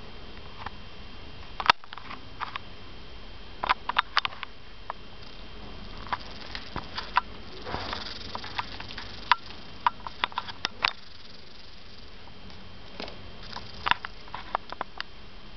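Egyptian jerboas hopping about on a hard stone floor, their feet and claws making scattered sharp taps and clicks in irregular clusters. A short rustling patch comes about eight seconds in.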